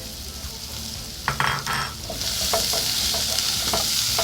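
Chopped onion frying in hot oil in a pot while a spoon stirs it. The sizzle grows louder about two seconds in, after a brief scraping rattle, with light spoon knocks against the pot.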